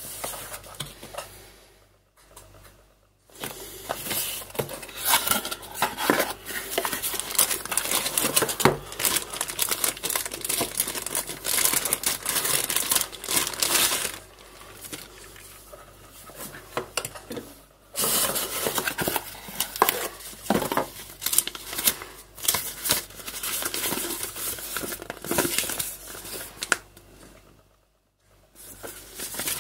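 Packaging being handled by hand: a plastic bag, paper and a cardboard box crinkling and rustling in uneven spells. It stops briefly a few times.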